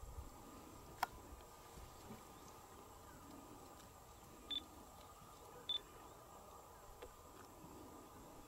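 Quiet bush with a faint steady hum, broken by one sharp click about a second in and two short high beeps a little over a second apart near the middle.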